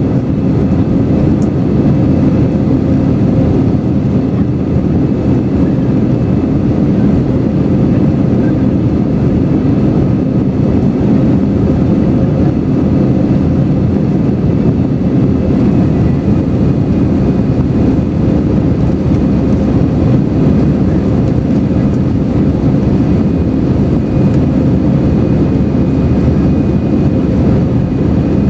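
Steady jet engine and airflow noise inside the cabin of an Airbus A321-200 airliner, a constant low rumble with a faint steady hum over it.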